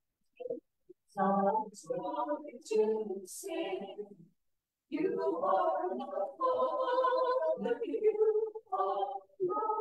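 Small mixed choir of men's and women's voices singing. Short phrases begin about a second in, break off briefly past the middle, then resume with longer held notes.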